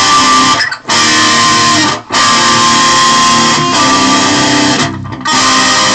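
Yamaha Pacifica electric guitar played through a distortion patch on a Digitech RP7 Valve multi-effects pedal into a small Yamaha GA15 practice amp: loud distorted chords ringing out, broken by brief stops about one, two and five seconds in.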